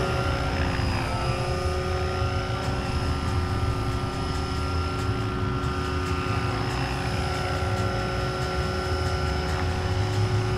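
Electric RC model helicopter on T-Rex 600 mechanics with a 600M motor, flying low: a steady high whine from the motor and drivetrain over the low rumble of the rotor blades. The pitch dips slightly about a second in, then holds.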